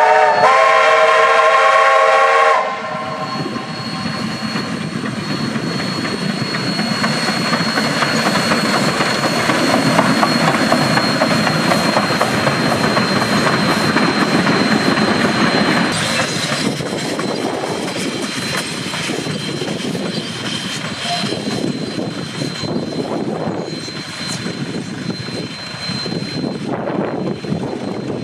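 Steam whistle of NZR Ja class 4-8-2 steam locomotive 1260 sounding one long chord-like blast of about two and a half seconds. Then the locomotive and its carriages run past with exhaust and wheel clatter on the rails, loudest about ten seconds in and slowly fading.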